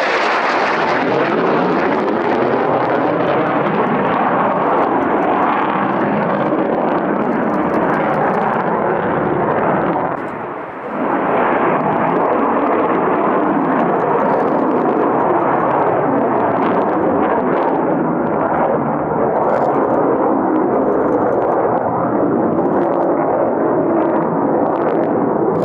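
Lockheed F-35A Lightning II fighter jet passing overhead, its single Pratt & Whitney F135 turbofan engine giving a loud, steady jet roar, with a brief dip in level about ten seconds in.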